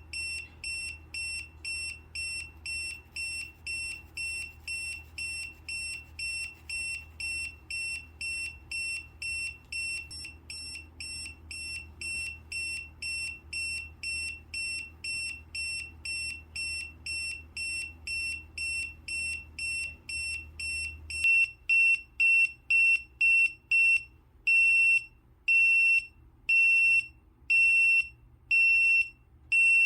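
ZeroCO carbon monoxide alarm's beeper sounding in alarm, a piercing high beep repeating about twice a second. About two-thirds of the way through it becomes much louder, and the beeps slow to a little over one a second and last longer.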